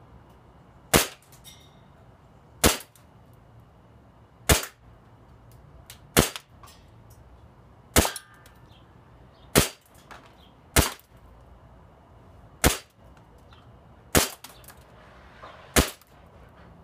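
A Colt 1911 100th Anniversary CO2 blowback airsoft pistol firing ten sharp semi-automatic shots, one every one and a half to two seconds.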